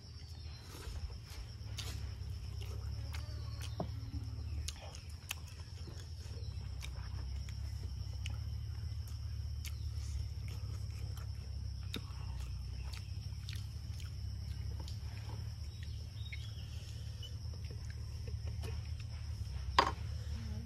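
Close-up sounds of a person eating rice and curry by hand: chewing and mouth sounds with scattered small clicks, over a steady high-pitched insect drone and a low hum. A single sharp knock comes near the end.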